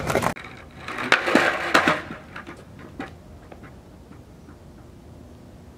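Skateboard clattering: a few sharp knocks and scrapes about a second in, then a quiet stretch with a few faint clicks.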